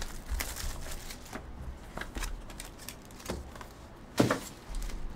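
Trading-card box and packs being handled and opened by hand: scattered light clicks, scrapes and rustles of cardboard, foil and cards, with one louder sharp knock about four seconds in.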